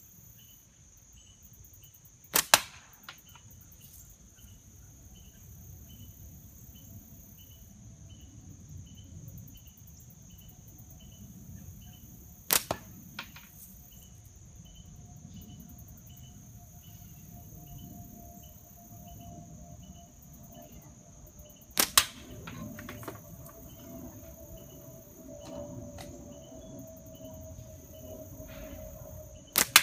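HDPE pinch-grip slingshot shooting 3/8-inch steel balls: four sharp snaps of the bands being released, roughly every eight to ten seconds, each followed closely by a second crack. Crickets and insects chirp steadily behind them.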